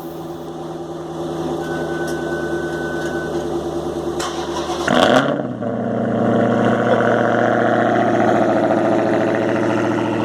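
Dodge Charger SRT Hellcat's supercharged V8 running through an exhaust with the mid-muffler deleted, idling steadily. About five seconds in there is a short loud burst, and the engine note shifts to a fuller, slightly higher idle.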